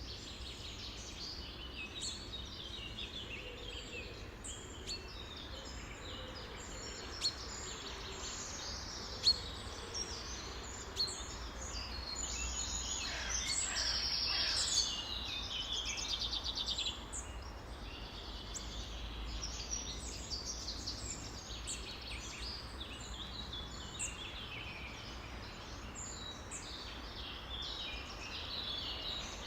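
Many small birds calling and singing at once in a busy chorus, with a louder, fast trill about halfway through, over a low steady rumble.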